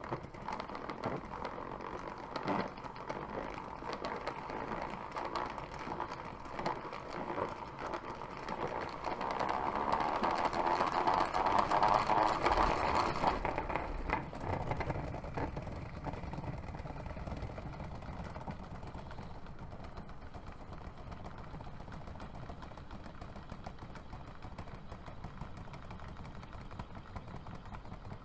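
A spinner spinning with a steady whir, with a few sharp clicks in the first seconds. The whir swells to its loudest near the middle, then settles into a quieter, lower hum.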